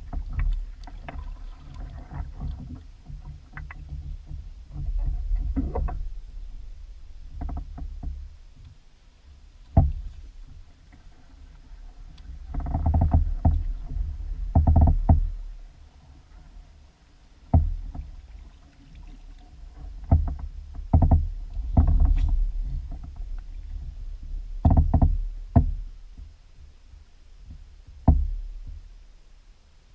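Fishing kayak hull knocking and clunking irregularly as things move aboard, with a sharp knock about ten seconds in and clusters of clunks later, over a steady low rumble.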